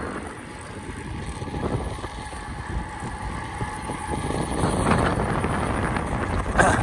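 Wind rushing over the camera's microphone while riding a road bike on asphalt, with louder gusts about five seconds in and again near the end.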